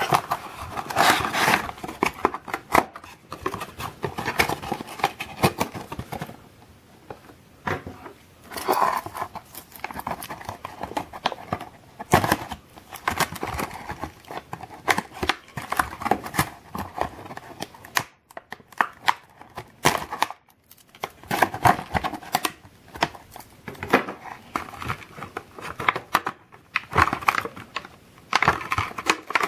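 A small cardboard box being pulled open by hand, then clear plastic packaging crinkling and crackling as it is handled, in irregular bursts with short pauses.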